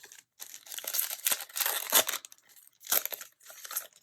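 A foil Yu-Gi-Oh! booster pack being torn open and crinkled by hand, in several crackly rips and crumples with the sharpest around the middle and near the end.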